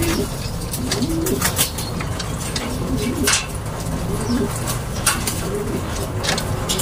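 Domestic racing pigeons cooing again and again, low wavering coos, with scattered sharp clicks.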